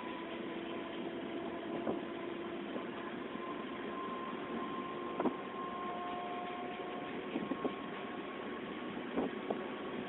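Running DEMU train heard from on board: a steady rumble and hiss of the moving train with faint steady whines, and a few sharp clicks scattered through.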